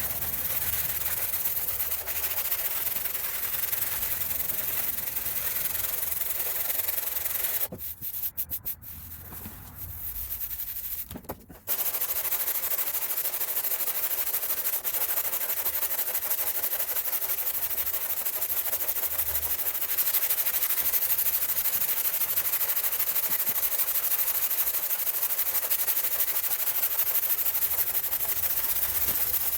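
Steady sanding on the steel trunk lid's bodywork, stopping in short stop-start bursts about eight seconds in and running steadily again from about twelve seconds.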